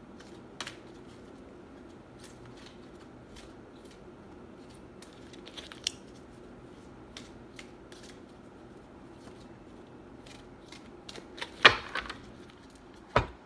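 A deck of oracle cards shuffled by hand: soft, scattered card clicks and flicks, with two sharper snaps of the cards near the end.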